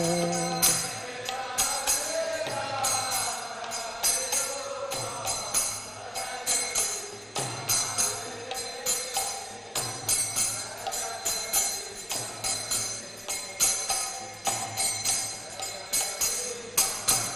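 Devotional kirtan music: metal hand cymbals and bells struck in a steady beat about twice a second. The last sung note of the refrain dies away just at the start.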